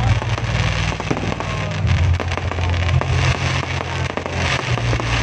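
Aerial fireworks going off: a dense, continuous run of crackling pops and bangs over a steady low rumble.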